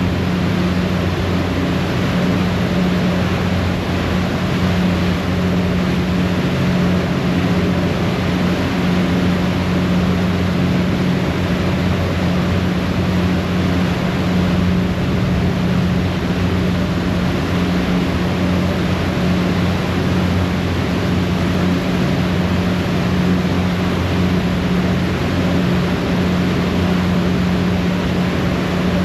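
A harbour ferry's engines running steadily at cruising speed, a constant low hum, over the rushing of the churning propeller wash and wake behind the stern.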